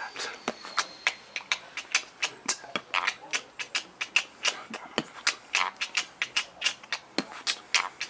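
Human beatboxing: a rapid, uneven run of mouth clicks, pops and hisses, several a second.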